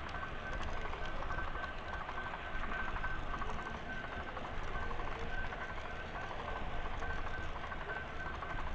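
Model train running along layout track, heard from a camera riding on it: a steady rumble and clatter, with a thin high tone that keeps breaking on and off.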